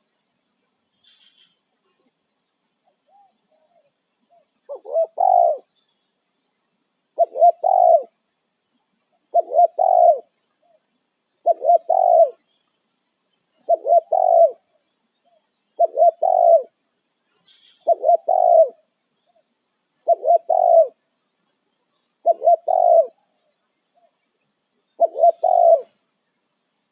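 Spotted dove (tekukur) cooing: a repeated phrase of several low coos, given about ten times at an even pace of roughly one phrase every two seconds, beginning a few seconds in. It is the dove calling to others of its kind. A faint high chirp sounds twice.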